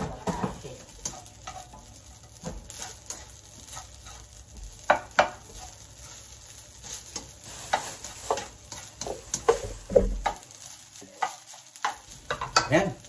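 A spatula scraping and knocking against a pan as fried rice is stirred, over a light sizzle. The strokes come irregularly. The loudest knocks fall about five seconds in and near the end, with a short pause shortly before the end.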